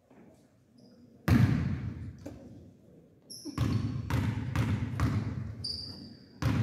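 Basketball bouncing on a gym floor: one loud bounce a little over a second in, then a run of dribbles, about two a second, from midway on. Short high sneaker squeaks come in between the bounces.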